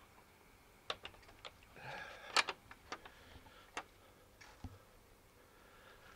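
A few sharp clicks and taps at irregular intervals, the loudest about two and a half seconds in.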